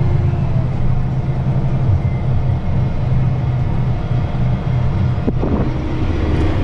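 John Deere 8345R tractor running steadily under load while pulling a seeder, a constant low drone as heard from inside the cab. A single short click comes about five seconds in.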